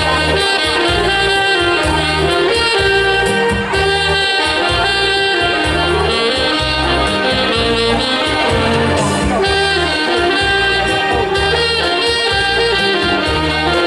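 A saxophone ensemble playing a Hakka folk tune together, held melody notes over a steady, rhythmic bass line.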